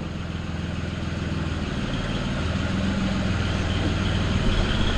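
Tractor engine idling steadily, slowly growing a little louder.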